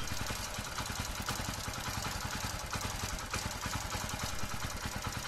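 Hero Passion Plus motorcycle's single-cylinder four-stroke engine idling steadily.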